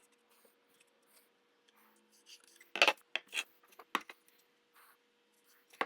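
Marking tools handled on a wooden board: a cluster of short scrapes and light knocks about three seconds in, and one more near the end, as lines are drawn against a square and a scrap of wood.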